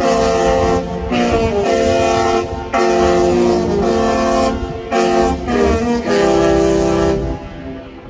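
Disney Wish cruise ship's musical horn playing a tune: loud held horn notes stepping between pitches, broken by short gaps, stopping shortly before the end.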